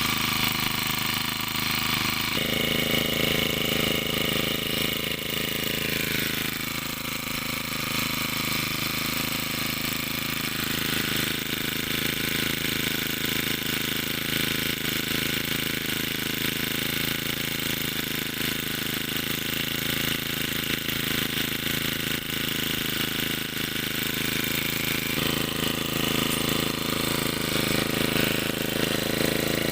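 Brush cutter engine running steadily. Its speed drops for a few seconds and then picks back up, and it shifts pitch a couple of other times.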